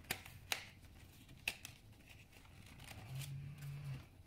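Faint rustling and a few sharp clicks of stiff card paper being handled, as the fold-out Marauder's Map flap of a pop-up book is fingered and opened. Near the end, a low steady hum about a second long.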